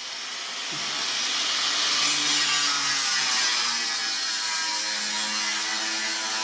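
Angle grinder with a cut-off disc cutting through sheet metal: a harsh, steady screech that builds over the first second or two as the disc bites into the sheet, then holds.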